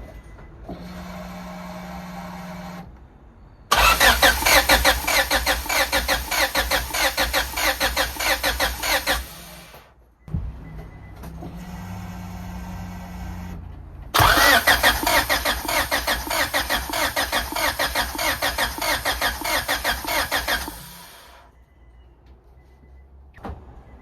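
Honda Civic EK4's B16 engine turning over on the starter twice, each time for about six seconds with a fast, even pulsing, and not catching: a crank-no-start. Before each crank a steady hum runs for a few seconds.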